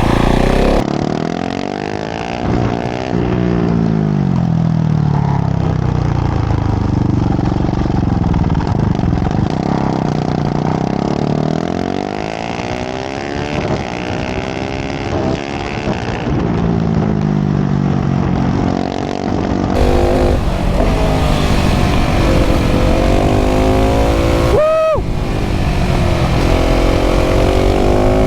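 KTM 690 SMC R's single-cylinder LC4 engine with a full LeoVince exhaust, ridden hard under load. The revs climb and drop back again and again as it accelerates through the gears and slows. There is one quick sharp break in the engine note about three-quarters of the way through.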